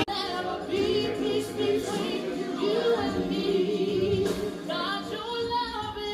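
Voices singing gospel music, several lines of sung melody wavering over one another. A louder passage breaks off abruptly at the very start.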